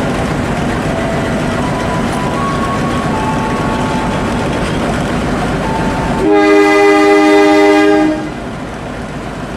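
Diesel locomotive running under way, heard from the cab as a steady rumble. About six seconds in, the locomotive horn sounds one chord for about two seconds and then stops. After the horn the running noise is quieter.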